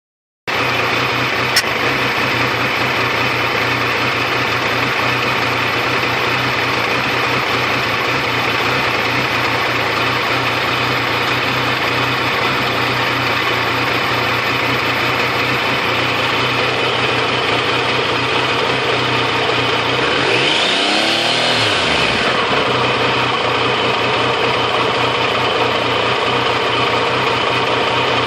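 Triumph Tiger 885i's fuel-injected three-cylinder engine idling roughly; the owner gets a sporadic hiccup at idle that sometimes stalls it. About twenty seconds in, the pitch briefly rises and falls away over a couple of seconds.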